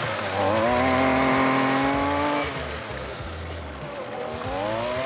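Small gasoline lawn-mower engine running. Its pitch and volume sag about halfway through, then climb again near the end.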